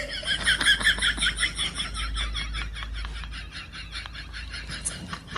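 An animal's rapid, repeated high chirping, several short chirps a second, running on without a break.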